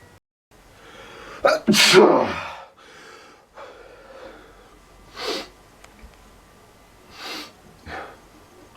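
A person sneezing: one big, loud voiced sneeze about two seconds in, its pitch falling, followed by a few shorter, softer bursts of breath.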